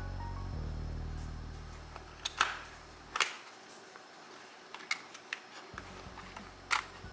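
A handful of sharp clicks, from small hard parts being handled, over low background music that drops out for a couple of seconds mid-way.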